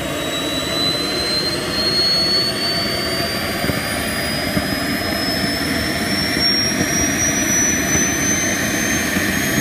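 Model jet turbine in a large radio-controlled F-100 Super Sabre running on the ground. A steady jet rush carries a high whine that climbs slowly in pitch as the turbine spools up.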